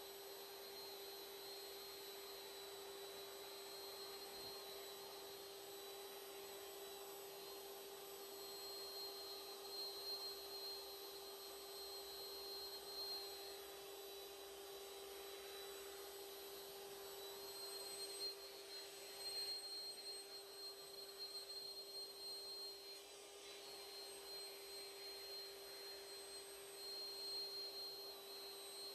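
Electric air pump running steadily with a constant whine, blowing air through a hose into a large vinyl inflatable ride roll. The level swells unevenly from about ten seconds in.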